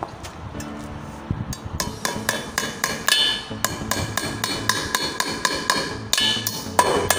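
Claw hammer striking nails into a wooden plank around a metal pole bracket: a few light taps, then from about two seconds in a quick run of sharp, ringing strikes, about four a second.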